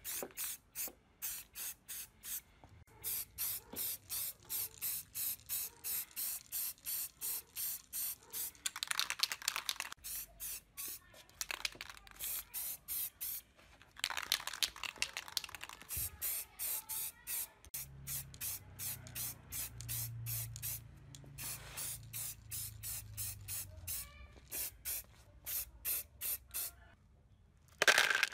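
Aerosol spray-paint can being sprayed in short bursts, about two a second, with a few longer sprays lasting a second or two.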